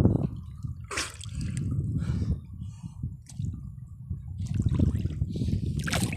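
Shallow seawater splashing and sloshing as a person moves with his head down in the water beside a fish-corral net: several sharp splashes over a steady low rumble.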